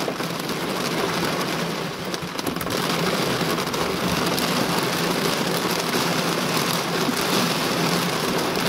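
Heavy thunderstorm downpour pelting a car, heard from inside as a steady dense hiss that grows heavier about two and a half seconds in.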